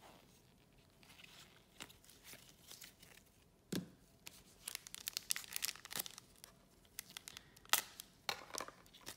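Trading cards handled in gloved hands, with a soft tap as the stack is set down about four seconds in, then the foil wrapper of a trading-card pack crinkling and crackling sharply as it is picked up and handled.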